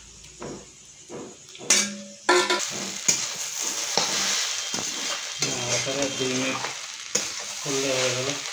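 Chow mein noodles sizzling in a hot metal kadai while a metal spatula stirs and tosses them, scraping and clicking against the pan. The frying starts suddenly and loudly about two seconds in and then runs on steadily.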